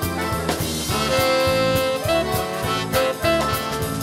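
Accordion orchestra playing a swing jazz arrangement live, with drum kit, bass and guitar: held accordion chords over a walking bass, and the drummer keeping time on the cymbals and snare.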